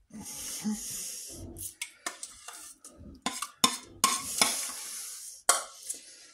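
Metal spoon scooping thick béchamel sauce from a pot and spreading it over cannelloni in a glass baking dish: wet scraping, with several sharp clinks of the spoon against the pot and the dish.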